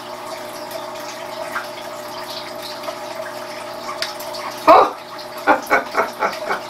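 A man gives a sudden loud cry a little under five seconds in, then breaks into laughter, a quick run of short 'ha' pulses. A steady hiss and hum sits underneath.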